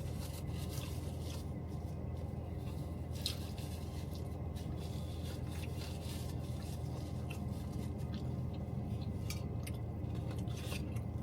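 A person chewing gravy-dipped fried chicken, with scattered small mouth clicks and squishy sounds over a steady low hum.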